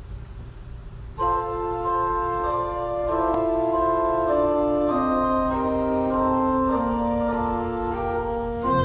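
Organ music: slow, held chords come in about a second in, with the lowest voice stepping down in pitch from chord to chord.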